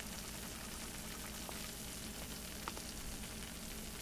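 Freshly baked chicken tetrazzini, just out of a 400-degree oven, sizzling faintly in its glass baking dish: a steady soft hiss with a few small pops.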